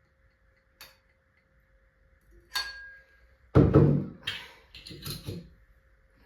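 Clicks and knocks of small hard objects being handled: a light click, a sharp click with a short ring, then a loud thud about three and a half seconds in, followed by a few softer knocks.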